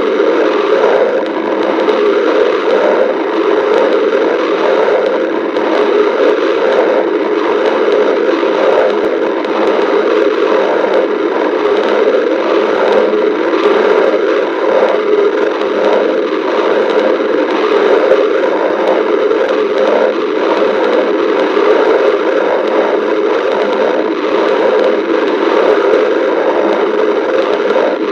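Stomach growling: a steady, loud rushing and crackling noise with shifting rumbles, without pauses or sharp knocks.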